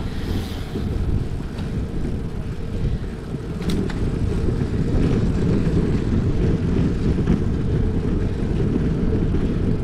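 Wind rumbling on the microphone of a camera carried on a moving bicycle: a steady low rush with no pitch.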